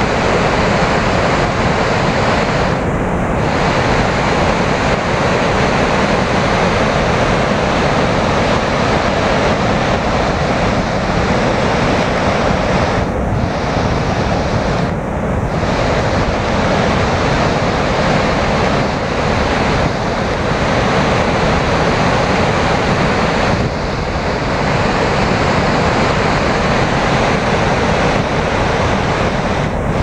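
Loud, steady rushing noise of a large waterfall, mixed with wind buffeting the microphone.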